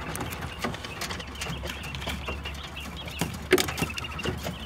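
Quails pecking and shuffling on straw, a scatter of small taps and rustles with soft high chirping calls; a louder cluster of taps comes about three and a half seconds in.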